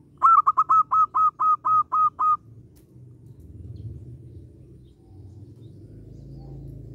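Zebra dove singing: a quick, even run of about nine short, clipped notes, roughly four a second, over a couple of seconds, then it stops.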